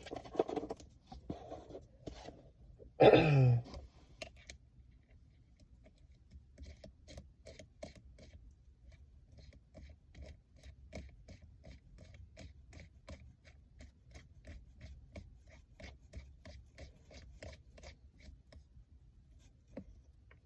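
Weighted shift knob being twisted by hand onto the shifter's threaded shaft: faint, even scraping clicks, about two a second, for most of the stretch. About three seconds in there is one loud, brief sound that falls in pitch.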